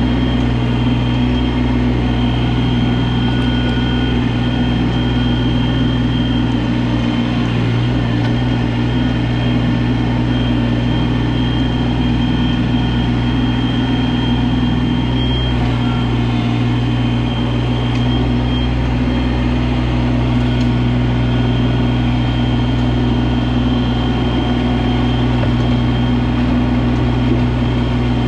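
Mahindra eMax 20S subcompact tractor's three-cylinder diesel engine running at a steady speed, with no revving up or down.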